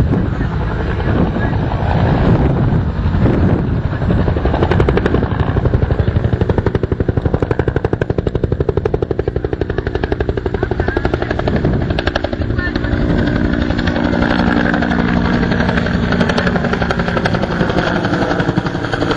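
Bell UH-1 Iroquois helicopter in flight: its two-blade main rotor beats rapidly and evenly over the turbine's drone. The beat is strongest in the middle, then settles into a steadier drone with a held pitch near the end.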